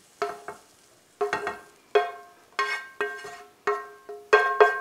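A utensil scrapes browned hamburger out of a skillet into a glass bowl, knocking against the cookware two or three times a second. Each knock rings with the same clear pitch, and the loudest knocks come near the end.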